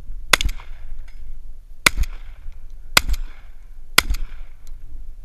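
Remington 1100 gas-operated semi-automatic shotgun fired in a string: four shots spaced roughly a second apart, with a fifth right at the end, each trailing a short echo.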